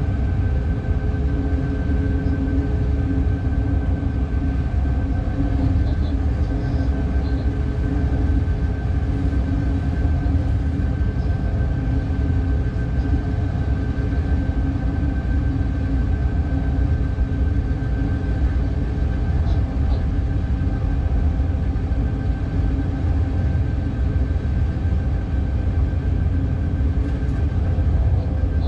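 Class 186 Bombardier TRAXX electric locomotive running under way, heard from its cab: a steady low rumble with a steady electric whine from the traction equipment over it.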